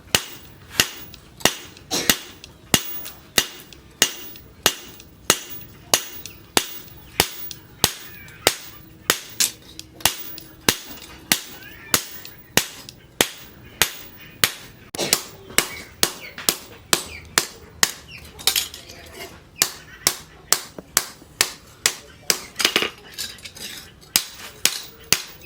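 Hand hammer striking steel on an anvil in a steady rhythm of about two blows a second, each blow a sharp ringing clang: forging a steel blade cut from a tractor disc.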